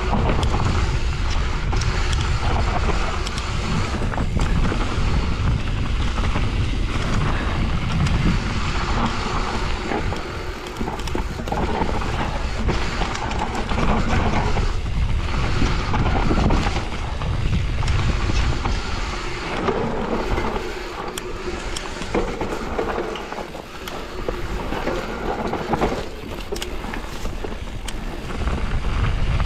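Mountain bike riding down a dirt trail: wind buffeting the camera microphone, tyres rolling over dirt and rocks, and the bike rattling with frequent knocks over bumps. It goes quieter for a few seconds about two-thirds of the way through.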